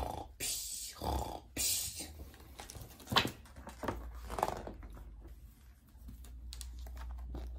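Imitated snoring of a sleeping brown bear: a few short snores in quick succession in about the first two seconds, then quieter, with a faint knock and a low hum.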